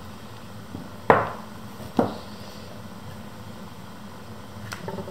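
Two sharp clacks about a second apart as hard objects knock against a ceramic mixing bowl, then a few faint clicks of a metal fork starting to stir in the bowl near the end.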